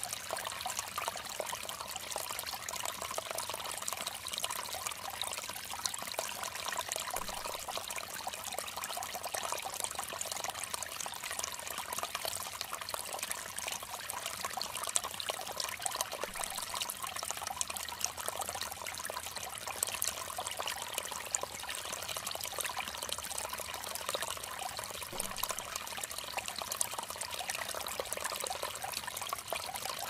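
Small forest stream splashing over rocks in a low cascade into a pool: a steady trickling and splashing of running water.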